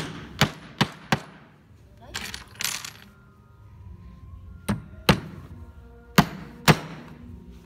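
A heavy hammer striking a wooden cabinet base frame to knock its corner joint tight: four sharp blows in quick succession, then two pairs of blows a second or so apart after a pause.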